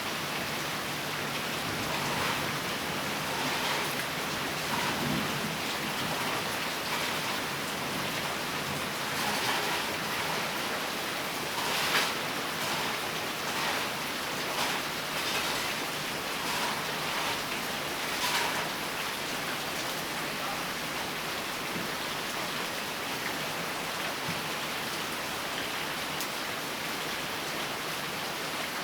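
Steady rain falling on a surface, with scattered louder drops and splashes standing out, the sharpest about twelve seconds in.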